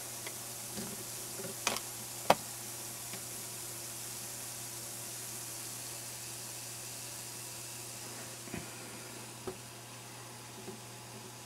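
A steady quiet fizzing hiss from a 25-plate stainless steel HHO electrolysis cell, its plates giving off gas bubbles in tap water, over a low steady hum. A few sharp knocks come through it, the loudest about two seconds in.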